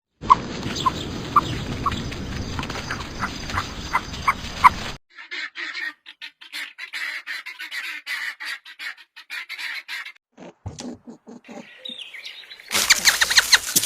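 Several short recordings of bird calls played one after another, with abrupt cuts between them. The first is a run of short chirps over a rough, noisy background. A loud fast trill comes in near the end.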